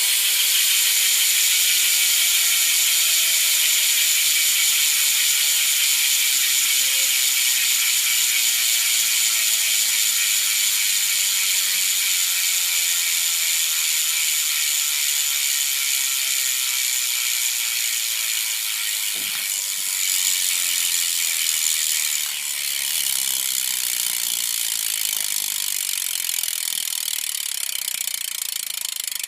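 Primo Remix rear hub of a BMX bike freewheeling: a fast, loud buzz of pawl clicks from the spinning rear wheel. The clicking rate slowly drops as the wheel coasts down, with one brief knock about 19 seconds in.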